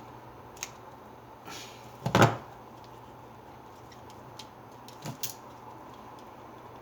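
Scattered clicks and knocks of small parts and tools being handled on a workbench, with one louder knock about two seconds in and a smaller double knock a little after five seconds, over a steady low hum.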